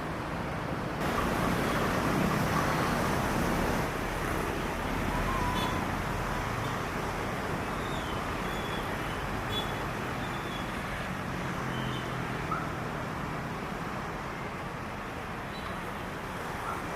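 Steady outdoor traffic noise, an even rushing hum with no distinct events, stepping up in level about a second in.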